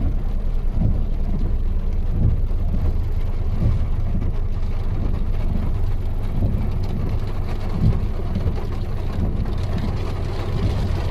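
Vehicle engine running steadily, with a continuous low rumble and hum.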